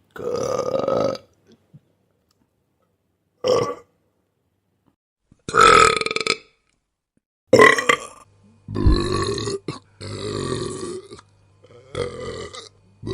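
A string of human burps, about seven, each one a separate belch of different length: a long one at the start, a short one, then more, coming closer together in the second half. A faint steady low hum lies under the later ones.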